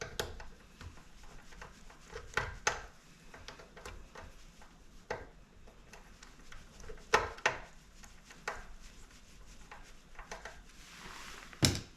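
Scattered light clicks and knocks of a screwdriver and screws being worked into a stand mixer's housing during reassembly, with a short scraping rub near the end and the sharpest knock just before it ends.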